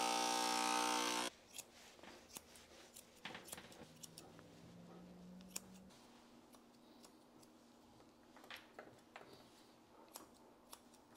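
Electric dog-grooming clippers humming steadily, then cut off abruptly about a second in. After that, steel grooming shears snip a scattering of short sharp cuts as the long fur around a dog's paw is trimmed.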